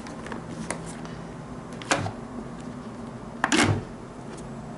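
Hard plastic clicks and a knock from a Shark Openline modular motorcycle helmet being handled: a few light clicks, a sharper click about two seconds in, and a louder clunk a little past three seconds.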